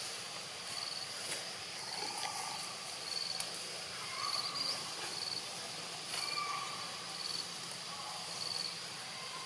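Insects chirping in the forest, a short high chirp repeating at an even pace.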